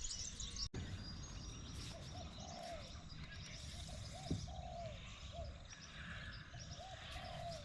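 Birds calling: a string of short, low, arched calls repeated over and over, with fainter high-pitched chirping from other birds over a quiet outdoor background.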